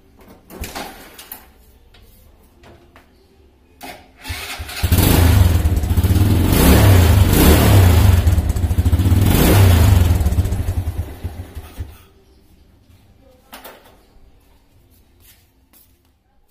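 Small motorcycle engine kick-started. It catches about five seconds in and runs for about seven seconds with a few swells in revs, then cuts off suddenly. This is a test start after work on cold-start trouble and misfiring.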